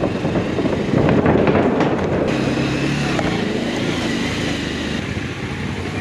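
Motorcycle engine running steadily under road noise, with a few sharp clicks about a second in.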